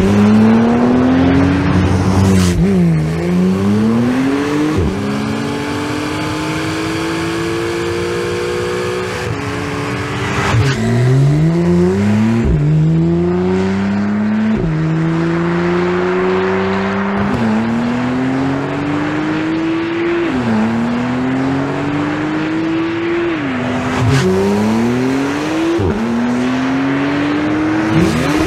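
Porsche 911 Carrera T's twin-turbo 3.0-litre flat-six engine accelerating hard, its pitch climbing and then dropping sharply at each gear change, over and over.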